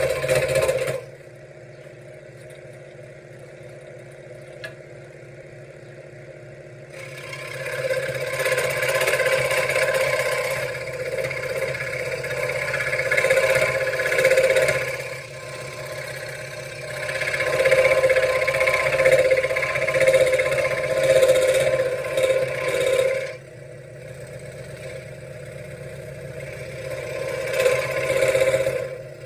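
Benchtop scroll saw running with its blade cutting through wood: a loud, steady buzzing. Twice the cutting noise drops away to a quieter motor hum for a few seconds, then picks up again.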